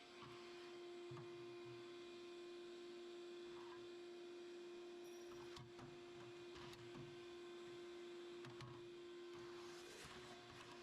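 Near silence: a faint steady hum with a few faint scattered clicks.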